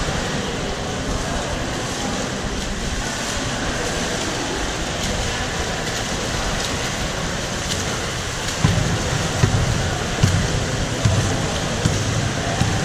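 Echoing indoor swimming-pool hall during water polo play: a steady wash of splashing water and distant voices. From about two-thirds of the way in comes a series of low thumps.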